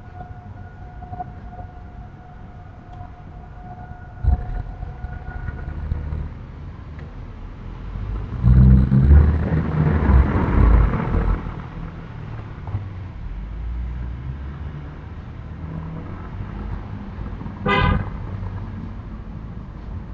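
A run of low, dull 'bobobo' thumping lasting about three seconds in the middle, which the recorder suspects is someone on a staircase. It is preceded by a steady tone and a single knock, and a short, higher-pitched blast follows near the end.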